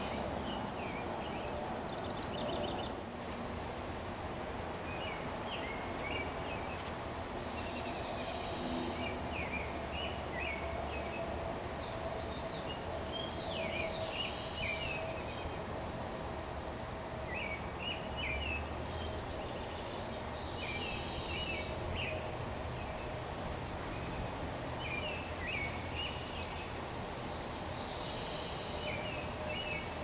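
Songbirds singing and calling, with repeated chattering phrases and sharp, high chip notes every second or two, over a steady low background hum.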